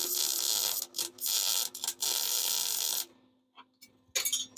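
Wire-feed welder arc crackling in three stretches of about a second each, with short pauses between, stopping about three seconds in. A few short clicks of metal being handled follow near the end.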